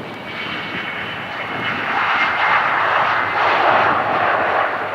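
Jet airliner's engines passing, a rushing roar with a faint high whine that grows louder and peaks two to four seconds in.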